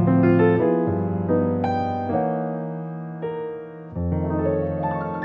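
Background piano music: notes and chords struck one after another and left to ring.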